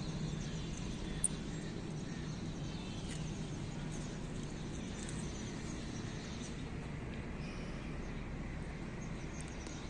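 Steady outdoor background noise with a low hum, and a single short high click about a second in.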